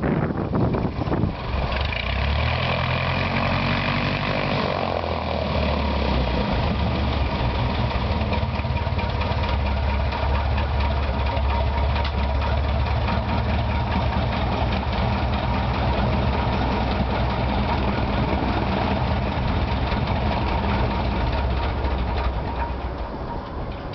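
Ercoupe light aircraft's piston engine running at low power. Its pitch shifts a few seconds in, then holds steady, easing slightly near the end.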